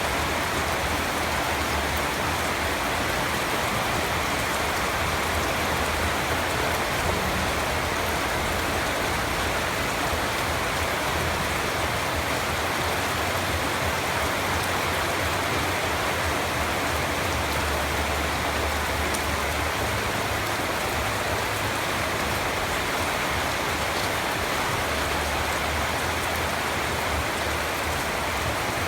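Steady rain falling and pattering on surfaces, an even unbroken hiss with a few scattered drop ticks.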